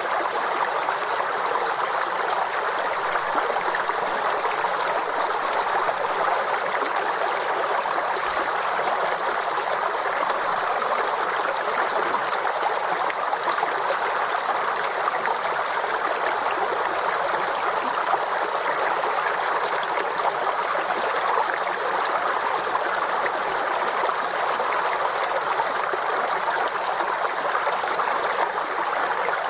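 Forest stream flowing and gurgling over stones, a steady, even rush of water.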